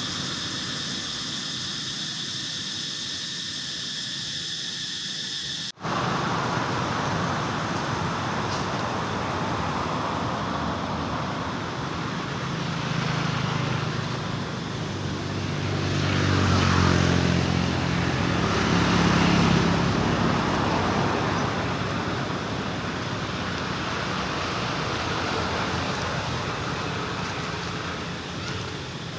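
Cicadas drone steadily with high, even tones for the first six seconds or so, then the sound cuts off suddenly. After the cut comes a steady wash of road traffic, with a motor vehicle passing and its engine loudest between about 16 and 20 seconds in.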